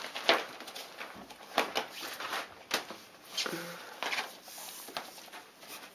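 Kittens scrambling about a fabric photocube: scattered soft rustles, scratches and light thuds at irregular intervals.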